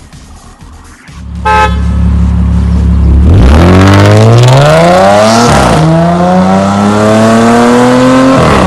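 Audi S5 with an IPE valvetronic sport exhaust accelerating hard. The engine runs steady at first, with a brief beep, then climbs in pitch through the gears, with upshifts about five and eight seconds in.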